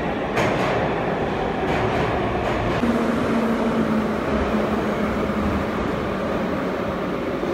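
Saint Petersburg metro train running with a steady rumble, with a few clicks in the first couple of seconds and a low motor whine from about three seconds in.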